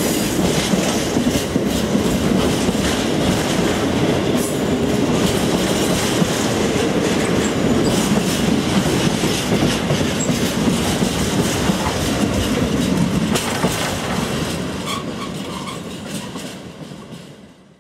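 Empty intermodal container flat wagons of a freight train rolling past, their wheels clattering over the rail joints in a steady rumble. The sound fades away near the end as the tail of the train moves off, then cuts off suddenly.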